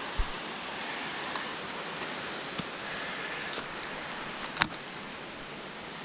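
Steady rushing of a mountain stream, with a few sharp knocks from footsteps on the rocky path. The loudest knock comes about two-thirds of the way through.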